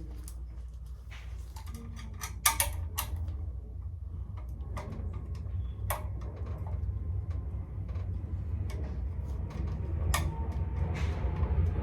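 Scattered clicks and taps of hand tools and screws on a steam boiler's pressure controls, one sharper knock about two and a half seconds in, over a low rumble that grows louder toward the end.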